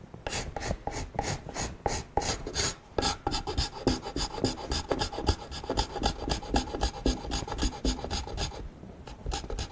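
Steel hand scraper drawn in quick, short strokes across the oak head of a small vinegar barrel, about four strokes a second, scraping vinegar stains off the wood; the strokes pause briefly near the end.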